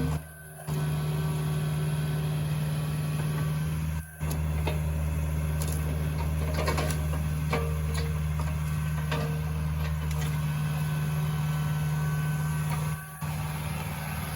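Kubota mini excavator's diesel engine running steadily under work, with scattered knocks and clanks as wood chunks are handled, breaking off briefly a few times.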